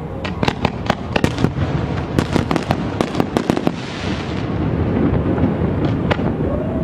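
Fireworks going off: a quick run of sharp bangs and cracks for the first three and a half seconds, then a crackling hiss and a lower rumble.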